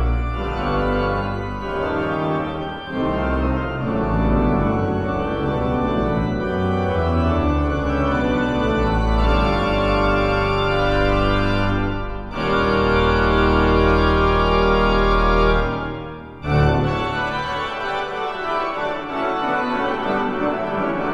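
Large pipe organ playing loud, full chords over deep pedal bass notes. The chords break off briefly twice, about twelve and about sixteen seconds in. After the second break the deep bass thins out and the playing is lighter.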